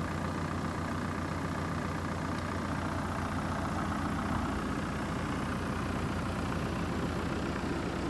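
Mitsubishi Rosa minibus's 4M51 four-cylinder diesel engine idling steadily.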